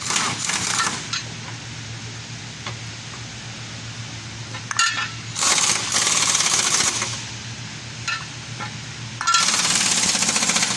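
Pneumatic impact wrench hammering in three bursts, a short one at the start, a longer one around the middle and another near the end, over a steady low hum.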